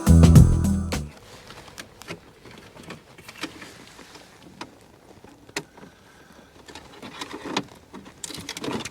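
Background music that cuts off about a second in, followed by faint, scattered clicks and handling noises of wiring connectors and dashboard parts being worked by hand.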